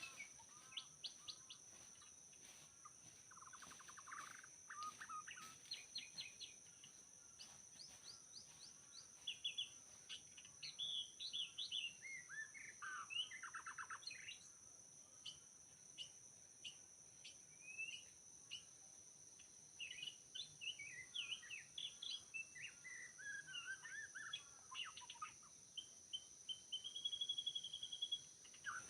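White-rumped shama singing a varied, fairly faint run of whistled phrases, quick chirps and trills, ending in a long level whistled note. A steady high-pitched tone runs underneath.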